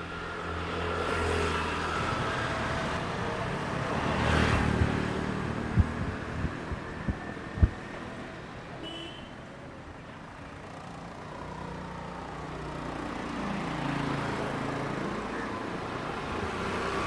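Motor vehicles driving past on a road: one engine close at the start, a louder pass-by a few seconds in, and another rising and fading in the second half, with a few sharp knocks near the middle.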